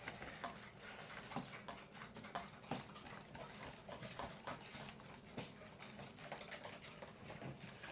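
Faint, irregular light clicks and taps of a spoon and plastic containers being handled while borax and water are mixed.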